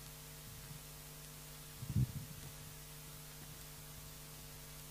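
Steady electrical hum through the microphone and sound system, with one short, dull low thump about two seconds in.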